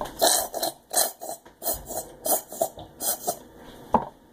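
Homemade slime squelching as it is worked in a bowl with conditioner and lotion, in quick wet squishes about three a second.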